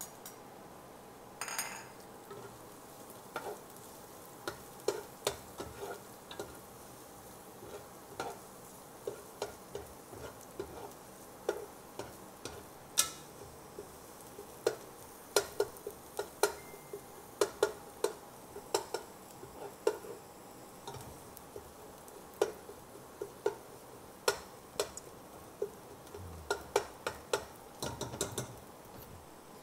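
Spatula knocking and scraping against a pot in quick, irregular clicks while stirring chopped garlic and onions, with a faint sizzle of the oil underneath.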